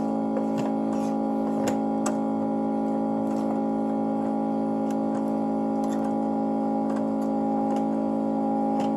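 Background music holding a steady sustained chord, with faint light clicks scattered through it.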